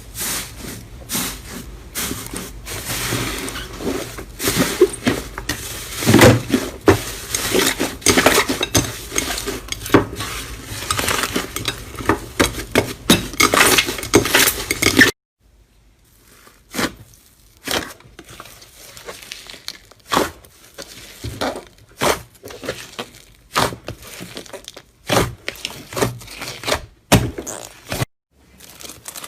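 Slime being squeezed and poked by hand, giving a dense run of crackling clicks and pops. About halfway through it cuts off suddenly, and sparser, separate clicks and pops follow.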